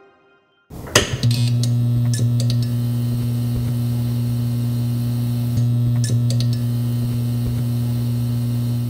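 End-screen outro sting: a sharp crackle about a second in, then a loud, steady low electric hum held to the end, with a few more short crackles partway through.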